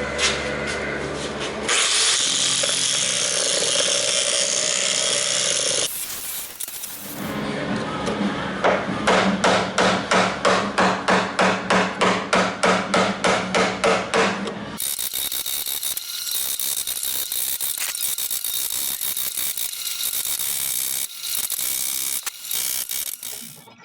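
Tool work taking apart a car tailgate, in several cut clips: a dense stretch of power-tool noise, then a run of rhythmic knocks about three a second over a steady hum, then steady power-tool noise with fine clicking.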